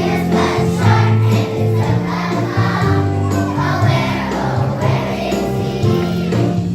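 Music with a group of voices singing over a steady instrumental accompaniment.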